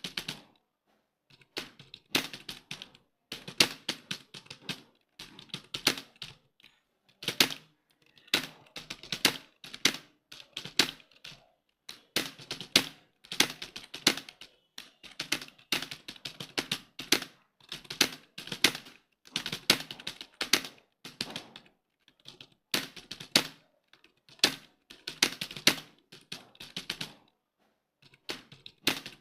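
Computer keyboard typed on quickly in irregular bursts of key clicks with short pauses between, the steady pace of a timed typing test.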